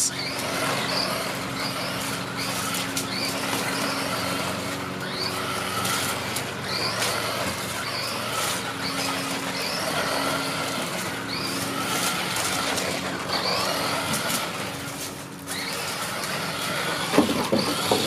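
VCANNY 1/18-scale 4WD electric RC truck driving around on a wooden deck: its electric motor whirring and its tyres rumbling over the boards, dipping briefly about fifteen seconds in.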